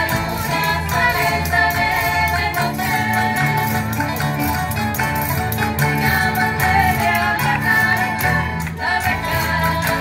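A women's tuna performing: guitars and other plucked strings playing a folk tune, with women singing together and a bass line underneath, amplified through loudspeakers.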